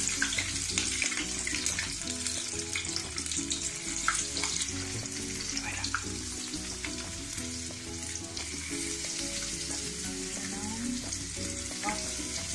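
Tempura-battered shrimp deep-frying in hot oil: a steady sizzle with scattered sharp pops, and a slotted spoon stirring them in the pan.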